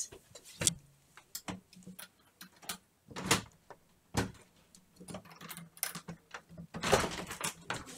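Irregular knocks and clicks, with louder ones about three seconds in and again near the end, over a faint steady low hum.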